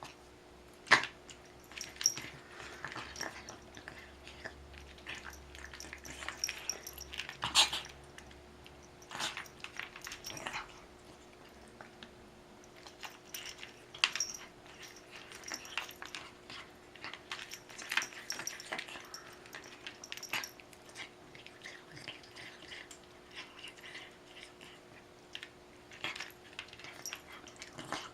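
A pet eating and drinking: irregular wet chewing and licking clicks, with a few louder sharp bursts.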